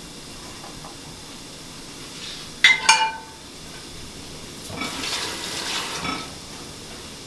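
A metal utensil clanks against a cooking pot twice in quick succession, ringing briefly, about three seconds in. Later a rushing, watery noise lasts a second or two.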